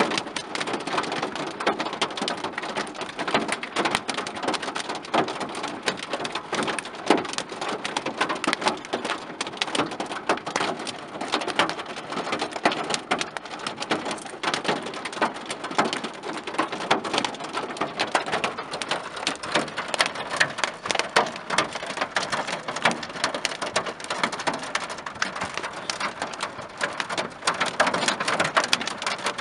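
Hail and rain pelting a car, heard from inside the cabin: a dense, steady clatter of small sharp impacts.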